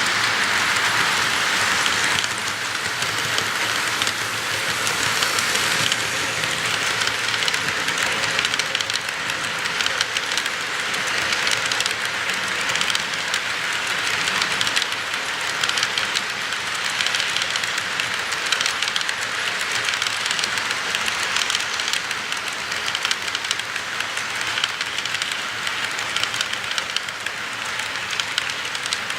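HO-scale ScaleTrains Dash 9-44CW model locomotive running on the track: a steady mechanical sound of its motor and gearing, with the wheels rolling over the rails. It is a little louder in the first couple of seconds.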